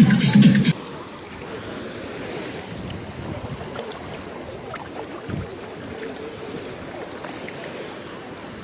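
Electronic dance music that cuts off abruptly under a second in, followed by steady sea surf with wind buffeting the microphone.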